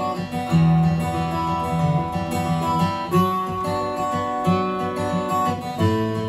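Steel-string acoustic guitar strummed and picked, playing a slow folk song accompaniment.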